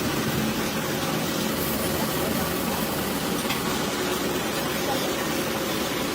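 A machine running steadily with an even hum, a faint tick or two on top.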